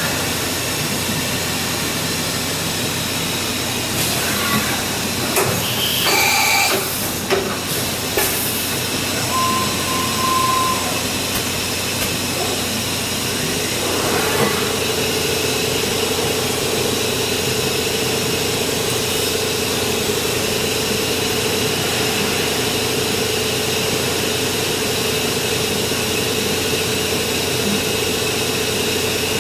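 Hurco VMX30U five-axis machining center at work: a steady hiss throughout, and a stretch of clatter and knocks a quarter of the way in as the tool is changed and the trunnion table swings upright. A brief whine follows, then from about halfway a steady hum as the spindle runs and the tool cuts into the part.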